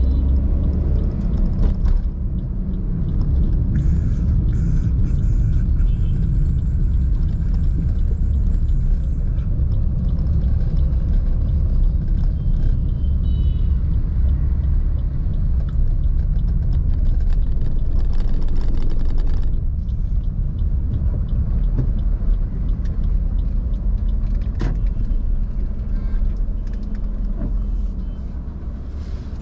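A car being driven: a steady low rumble of engine and road noise, easing slightly about two-thirds of the way through and fading a little near the end.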